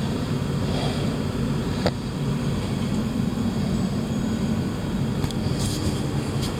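A refrigerator running with a steady, loud low hum and rumble, with one sharp click about two seconds in.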